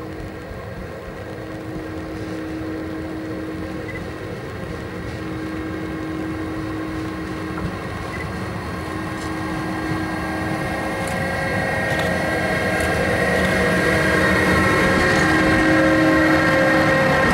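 Electric freight locomotive approaching and passing close by with a train of empty flat wagons: a steady hum with held whining tones that grows steadily louder as it nears, with higher whining tones joining in the second half.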